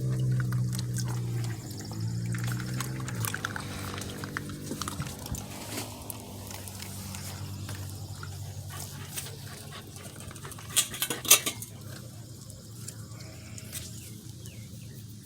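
Australian Shepherd puppies making a low, drawn-out sound for the first three seconds or so, then quieter shuffling and scratching with a couple of sharp clicks about eleven seconds in.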